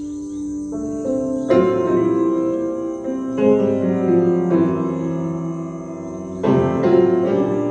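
Slow piano music: chords struck every second or two and left to ring, the loudest about a second and a half in and again near the end.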